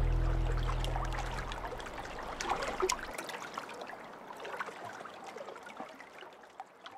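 Background music fading out over the first couple of seconds. Under it, water trickles and drips from a kayak paddle in small scattered splashes, which fade away too.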